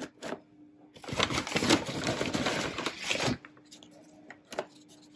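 Dried lamb braid chews rustling and crinkling as they are handled and put into a plastic tub, with light clicks and taps. The dense rustle comes about a second in and lasts around two seconds.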